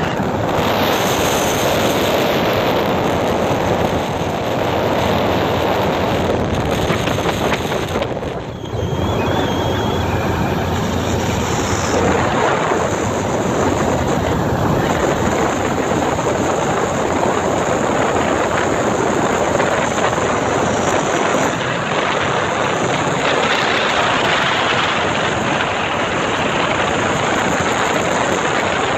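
Small motorboat under way, its engine running steadily at cruising speed, mixed with rushing water and wind on the microphone. The noise drops briefly about eight seconds in.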